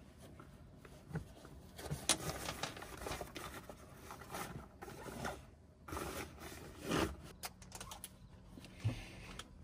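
Quilted insulated window shades being pressed into a van's cab windows: faint fabric rustling and scraping, with a few light clicks.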